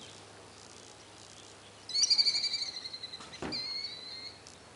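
A small songbird calling close by: a loud, high-pitched trilled phrase about two seconds in, then short whistled notes that fall slightly in pitch. A single sharp click comes between them.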